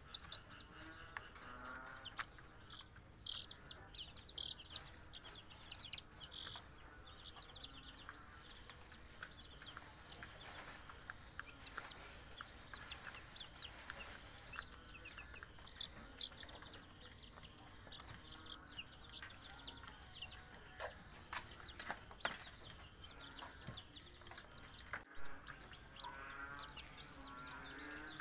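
Young serama, rosecomb and Siamese chickens peeping and chirping in many short, high calls scattered throughout, over a continuous high-pitched steady whine.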